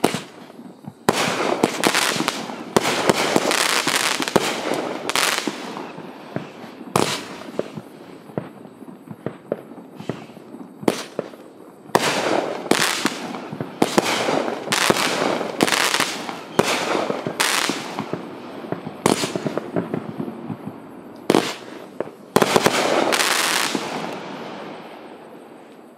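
An 18-shot, 200 g consumer firework cake firing its shells one after another, with sharp bangs coming in quick runs. The loudest cluster comes near the end, then the sound dies away.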